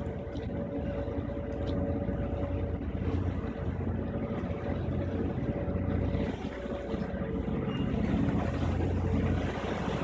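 Harbour ferry Halifax III's engines running with a steady low drone and a hum, the rumble swelling a little near the end as the ferry manoeuvres alongside the dock and its propeller wash churns the water.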